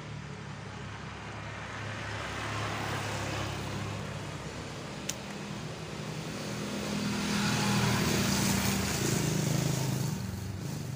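A motor vehicle's engine running nearby, growing louder about seven to ten seconds in as it passes. A single sharp click about five seconds in.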